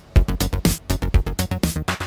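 Electronic music with a steady drum-machine beat, deep kicks about twice a second with crisp high hits between them.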